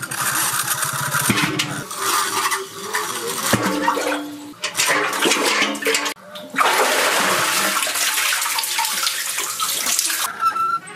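Water splashing in a well as a metal bucket on a rope is dipped in, filled and hauled up, water spilling off the bucket back down the shaft. A steady rush of falling water starts about six and a half seconds in and stops just before the end.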